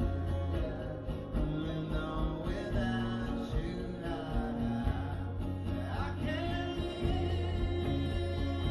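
Live acoustic music: guitar with a singing voice over low held bass notes.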